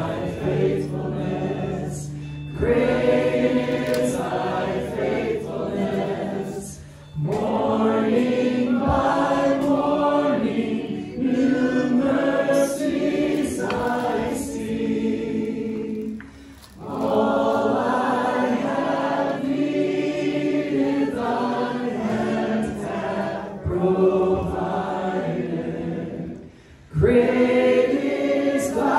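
A group of people singing a hymn together as a congregation, in long phrases with brief breath pauses between them about 7, 16 and 27 seconds in.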